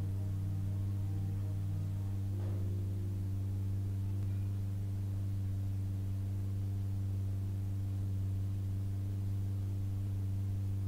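A steady low hum with soft held tones above it. The upper tones shift about two and a half seconds in.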